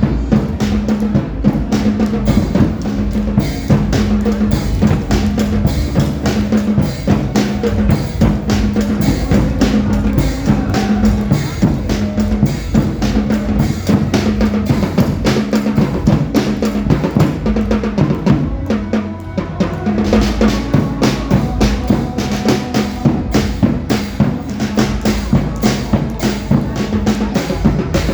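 Dance music with a driving drum-kit beat (bass drum, snare and rolls) over a repeating bass line, the accompaniment to an applied Hmong folk dance.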